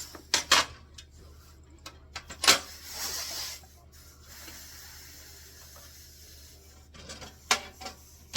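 Scattered sharp clicks and knocks of tools and metal parts being handled, with a short hiss about three seconds in.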